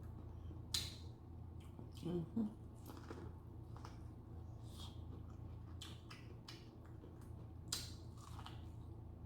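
Close-miked eating sounds: chewing with wet mouth clicks and smacks, the sharpest one under a second in and another near the end, and a brief hum about two seconds in.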